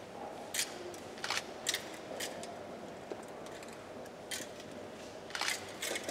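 Thurible (censer) chains clinking against the metal censer as it is swung, about six short, bright clinks at uneven intervals.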